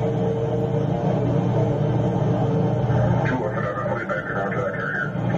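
Electronic background music with a steady low drone; a brighter, higher part comes in about three seconds in.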